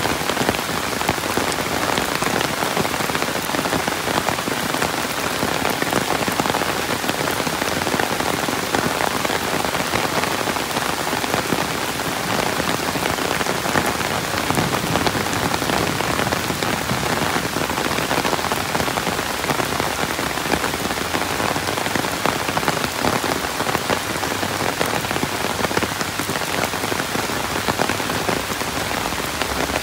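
Steady rain falling: a dense, even patter of countless drops that holds without a break.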